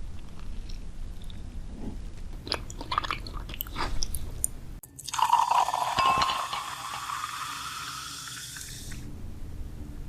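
Close-miked crunching and chewing of candy, with sharp crackly bites. About five seconds in, after a sudden cut, a hissing sound rises steadily in pitch for about four seconds, then stops.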